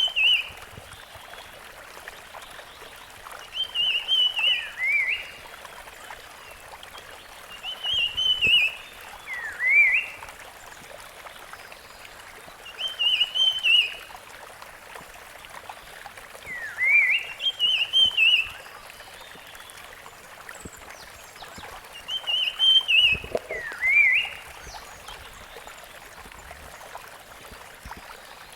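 Rusty-fronted barwing singing the same short phrase every four to five seconds, six times: a quick warbling burst followed by one or two rising whistled notes, over a steady hiss.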